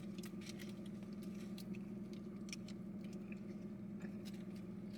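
Someone chewing a bite of a fried chicken sandwich: faint, scattered small crunches and mouth clicks over a steady low hum.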